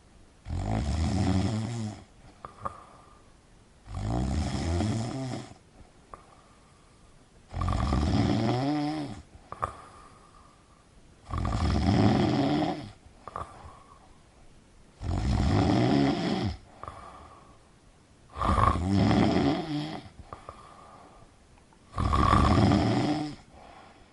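A person snoring: seven loud snores, one about every three and a half seconds, each lasting about a second and a half, with faint breathing between them.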